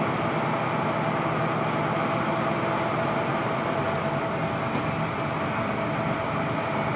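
Passenger boat's engine running steadily under way: an even drone with a steady whine held over it, mixed with the rush of water and wind.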